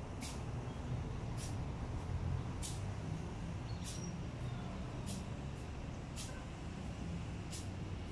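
Footsteps of a person walking on paving, a short light scuff about every second and a bit, evenly paced, over a steady low rumble.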